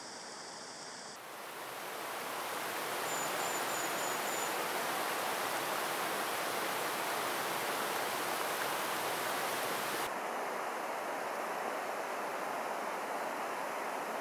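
Steady rush of a river running over rocks and shallow rapids, a continuous hiss that grows louder about a second in and shifts in character about ten seconds in. A brief faint high chirp about three seconds in.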